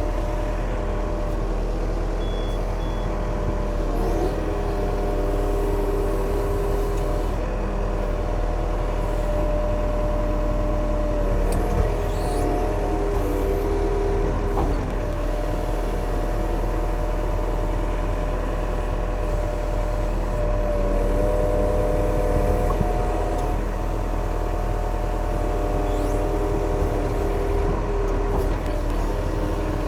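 Yanmar diesel machine engine running steadily, its tone shifting a few times as the load or revs change.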